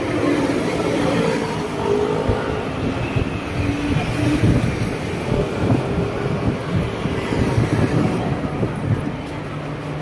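Road traffic: motor vehicles running past in a dense, steady rumble, with a faint engine hum in the first few seconds.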